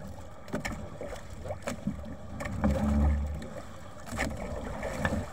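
Gill net being hauled by hand over the side of a wooden outrigger boat: scattered knocks and rustles of the wet net against the hull, over the wash of the sea.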